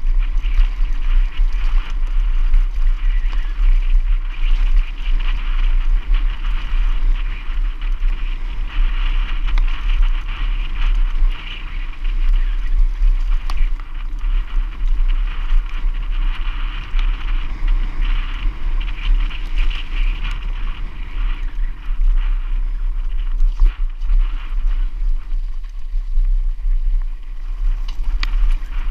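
Wind buffeting the microphone of a camera riding on a mountain bike descending a dirt trail at speed, with steady tyre noise and scattered clicks and rattles from the bike over rough ground.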